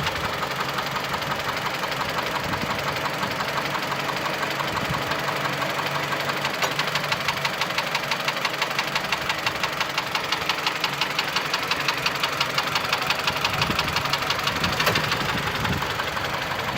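Mitsubishi Lancer X's 2.0-litre 4B11 four-cylinder engine idling with a steady, rapid, ringing knock. The owner says the knock is there cold and hot, goes away when the air conditioner is switched on and partly fades at higher revs; its cause is unknown to him.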